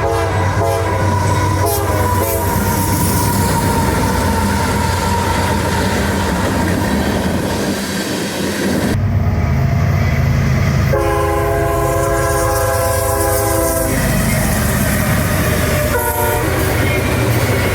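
Train passing on a mainline with a steady rumble and rattle of wheels, its multi-chime air horn sounding a short blast near the start, one long blast in the middle, then two shorter ones near the end.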